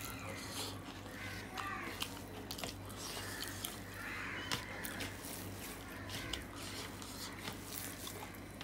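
Fingers squishing and kneading rice into mashed potato and coriander-leaf paste on a steel plate, with many small wet clicks, over a steady low hum.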